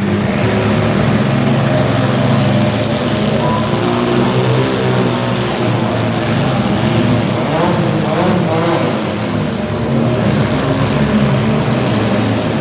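Engines of several demolition derby cars running at once, their pitch rising and falling as they rev, loudest around the middle.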